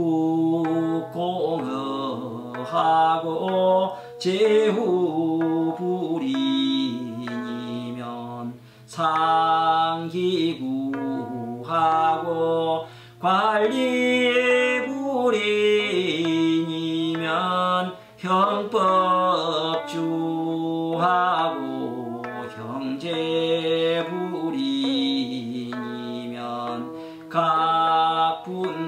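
A man chanting classical Chinese text in the Korean seongdok recitation style: long melodic phrases with held and gliding notes, broken by a few short breath pauses. A steady low tone runs underneath.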